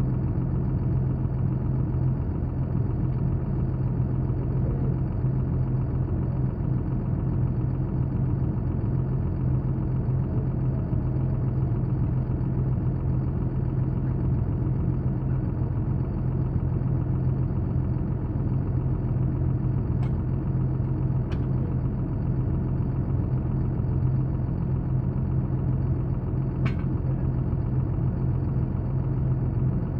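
An engine idling steadily with a constant low drone. A few sharp clicks or taps sound over it, two close together and one more a few seconds later.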